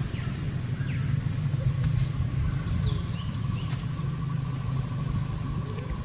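Birds giving short, high, downward-sweeping chirps at intervals over a steady low hum. A thin pulsing trill starts about two and a half seconds in and carries on.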